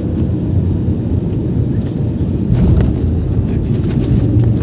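Cabin noise of an Airbus airliner rolling down the runway after landing: a steady, loud low rumble of the engines and wheels, swelling slightly about two and a half seconds in.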